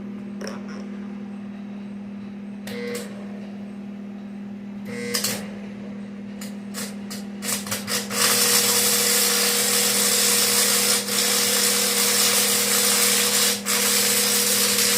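Arc welder laying a tack weld: a few short, sputtering arc strikes, then a steady crackling arc held for about eight seconds with two brief breaks, over a steady hum.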